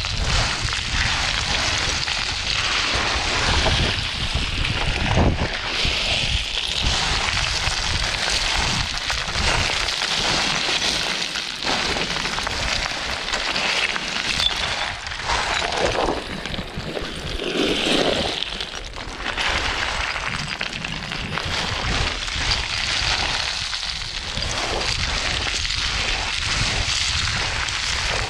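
Footsteps and trekking-pole tips crunching irregularly on loose, shaly scree, over a steady low rumble.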